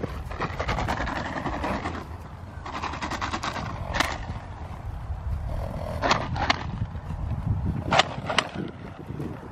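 Hoofbeats of a horse cantering on grass and dirt, over a steady low rumble of wind on the microphone. Several sharp knocks stand out, at about four, six and eight seconds in.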